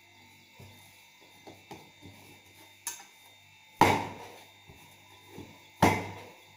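Hand-kneaded wheat dough worked in a stainless-steel saucepan: a few soft knocks, then twice a loud sharp strike with a short metallic ring as the dough ball is lifted out and thrown back down into the steel pan.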